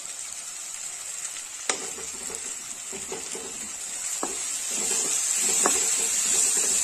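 Onion, tomato and green chilli masala sizzling in an old iron kadhai while a metal spatula stirs and scrapes through it, with a few sharp knocks of the spatula on the pan, the loudest about two seconds in. The sizzle grows louder past the middle.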